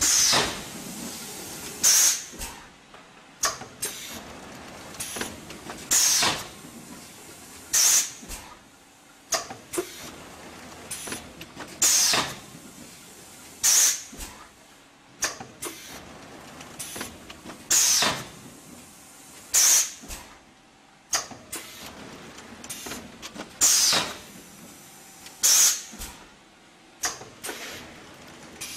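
Six-cavity automatic PET bottle stretch blow molding machine running: loud, sharp hisses of compressed air come in pairs about two seconds apart, with each pair repeating about every six seconds. These are the air exhausts of the machine's blow cycles. Smaller pneumatic clicks fall between them over a steady machine noise.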